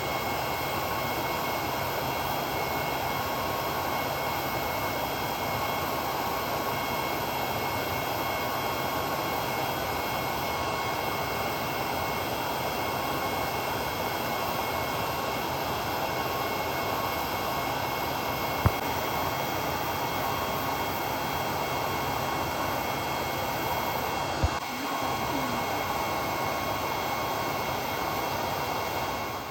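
Electric nail drill (e-file) with a Komet bit running steadily, filing toenails: an even whir with a faint steady whine. Two brief clicks in the second half.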